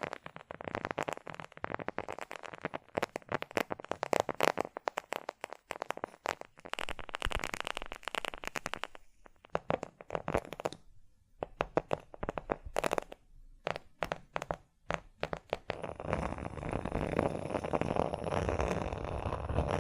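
Close-miked ASMR trigger sounds: rapid clicking and crackling, like fingertip tapping or crinkling, with short pauses. About three-quarters of the way in it turns to a denser, continuous crackle.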